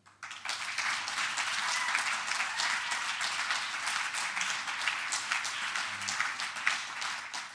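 Audience applause, breaking out suddenly about a quarter of a second in and continuing steadily as a dense clatter of many hands clapping.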